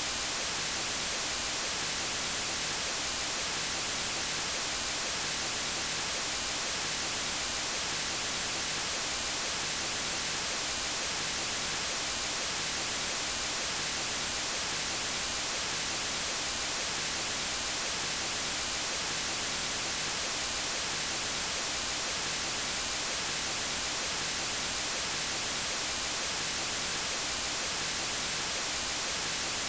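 Steady electronic white noise: an even, unchanging hiss with no breaks, strongest in the high frequencies.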